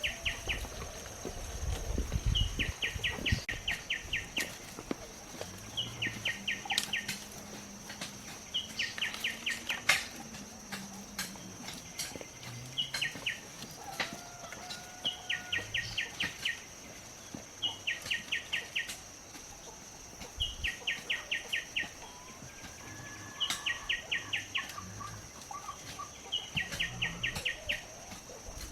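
Outdoor animal sounds: a short trill of rapid chirps that repeats every two to three seconds over a steady high-pitched insect drone. A few low thumps are heard near the start.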